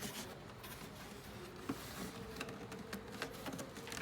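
Faint scattered taps and light clicks of the air purifier's plastic parts and filter being handled and fitted in by hand.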